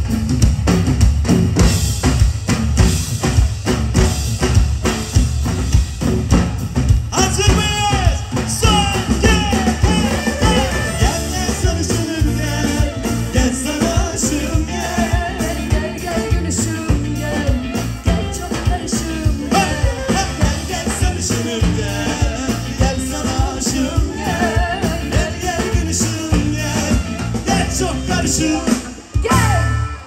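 Live pop band playing an upbeat song with a full drum kit driving the beat; singing comes in about seven seconds in. The music drops away abruptly near the end.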